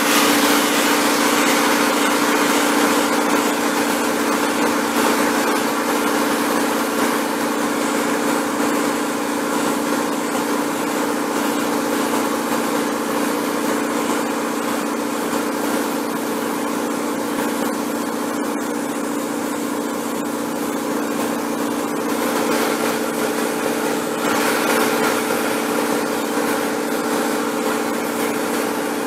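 Air compressor motor running steadily under the hiss of a spray gun spraying spray-on chrome solution; the hiss breaks off briefly once, about two-thirds of the way in.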